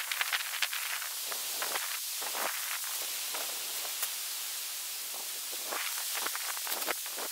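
Tent fabric rustling and flapping as a tent is shaken out and spread over a groundsheet, in flurries at the start and again near the end, over a steady hiss.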